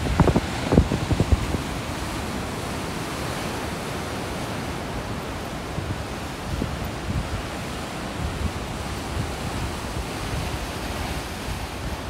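Ocean surf breaking and washing over a rocky shoreline, a steady rushing hiss. Wind hits the microphone with a few low thumps in the first second or so.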